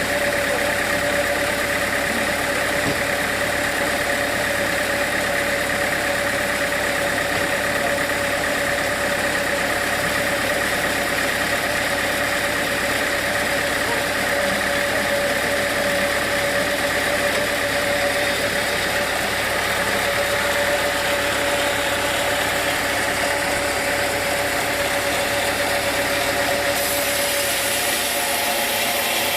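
Sawmill machinery running steadily, a constant engine-like drone with a steady whine over it.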